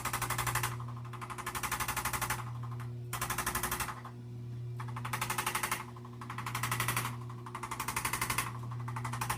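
Electric percussion massager running with a steady motor hum, hammering in bursts of rapid strikes, roughly a dozen a second. Each burst lasts under a second, and there are about seven of them with short pauses between.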